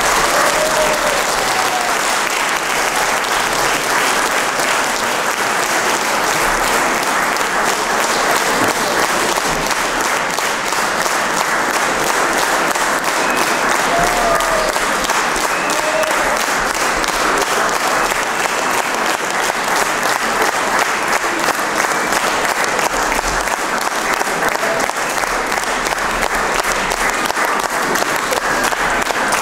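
Audience applauding: many people clapping steadily without a break.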